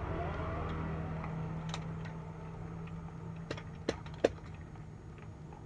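A few sharp clicks from a phone tripod being grabbed and handled, the loudest about four seconds in, over a low steady motor hum that fades away.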